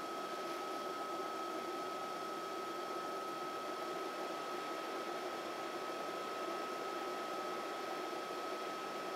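Steady hum from the running Raspberry Pi projector-computer: an even, fan-like whir with a thin, constant high whine over it.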